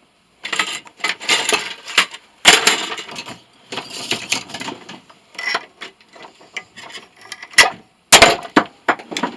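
Hand tools working on metal scrap: irregular scraping and clattering with a few sharp knocks, the loudest about two and a half seconds in and again near the end.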